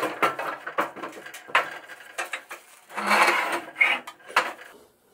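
Steel riding-mower deck being flipped upside down on a steel welding table: a string of clanks and knocks, with a scraping rush about three seconds in.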